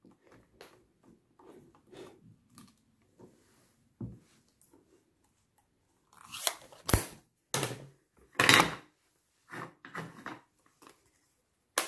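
Hands working with stamping tools: faint ticks and rustles, then from about six seconds in a run of sharper plastic clacks and taps, with one hard knock, as an ink pad is handled and clear stamps on a Stamparatus stamping platform are inked and pressed onto card.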